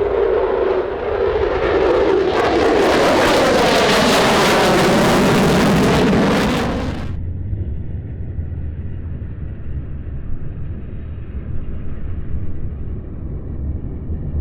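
An F-22 Raptor's twin turbofan jet engines passing close in a loud flyby, the sound sweeping down in pitch as it goes by. About seven seconds in, the high part of the sound cuts off suddenly, leaving a low rumble with wind on the microphone.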